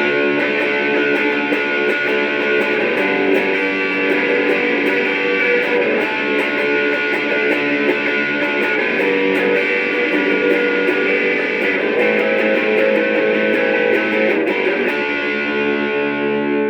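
Electric guitar strumming chords through a Joyo British JF-16 Marshall-style amp-simulator pedal, with a busy rhythm of pick attacks. About fifteen seconds in the strumming stops and the last chord rings out.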